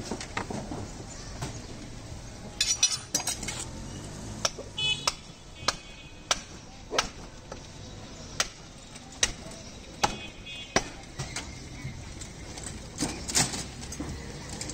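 Butcher's cleaver chopping beef on a block: a run of sharp, evenly spaced blows about one every two-thirds of a second, with a few short metallic clinks ringing between them.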